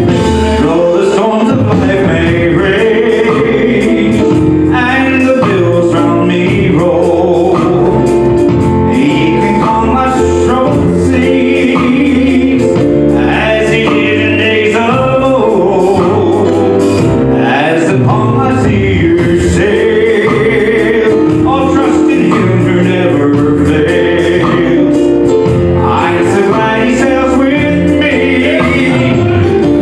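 A live gospel song: men singing in harmony, backed by acoustic guitar, keyboard and drums.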